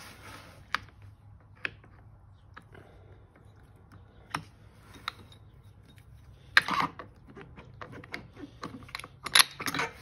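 Scattered metallic clicks and clinks as the Honda CRF110's clutch assembly is handled and wiggled onto its shaft to line up the gears, with louder clattering about six and a half and nine seconds in.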